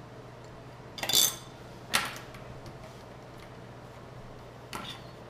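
A few short clatters and clicks of a small quadcopter anti-vibration mount's plates and parts being handled and set down on a wooden table: a louder clatter about a second in, a sharp click a second later, and a fainter one near the end, over a low steady hum.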